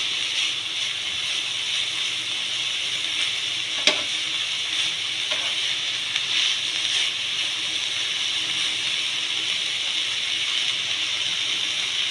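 Shredded cabbage and pointed gourd sizzling steadily as they stir-fry in a pan, turned by a spatula, with one sharp knock about four seconds in.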